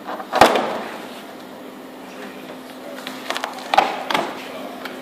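Sharp cracks and crackling as a thin cut sheet is slapped, flexed and pulled off a CNC router bed: two loud cracks, about half a second in and near the end, with smaller clicks between them. A low steady hum runs under them.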